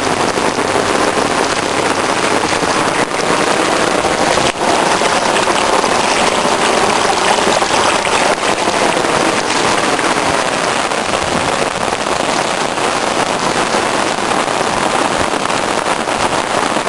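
Heavy thunderstorm rain pouring down steadily, a loud, even hiss of water falling on surfaces.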